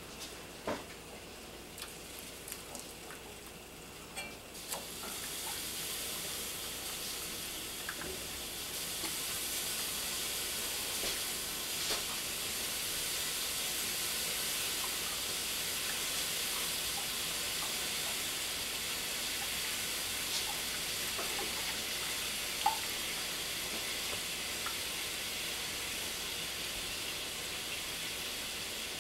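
Wire whisk stirring a cheese sauce in an enameled cast-iron pot: a steady swishing hiss that starts about five seconds in and grows louder about nine seconds in, with a few light clicks of the whisk against the pot.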